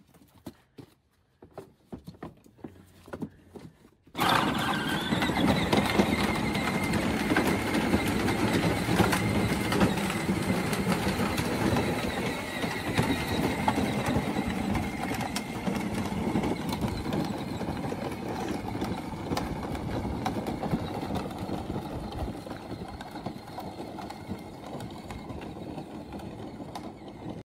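Battery-powered ride-on toy truck setting off about four seconds in: a steady electric motor whine with its plastic wheels crunching over gravel, growing slowly fainter as it drives away.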